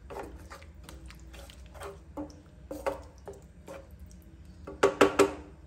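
Slotted spatula stirring a thick, wet masala gravy with pieces of bell pepper in a nonstick pan: soft squelching scrapes in an uneven rhythm, with a quick run of louder knocks against the pan near the end.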